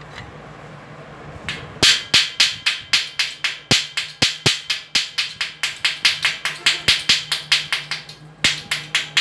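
Chipping hammer knocking slag off a fresh stick weld on a steel roof-truss joint: a fast run of sharp metallic strikes, about four a second, starting about two seconds in, with a short break near the end.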